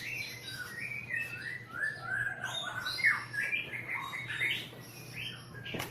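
A songbird singing a rapid, continuous run of short chirps and whistles. A steady low hum lies under it, and there is a sharp knock near the end.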